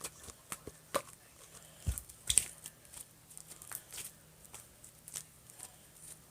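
Clear-glue slime being scraped and pulled out of a container by hand: scattered small sticky snaps and clicks, the loudest pair about two seconds in.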